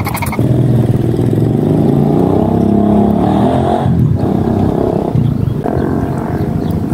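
A motor engine running, its pitch drifting up and down.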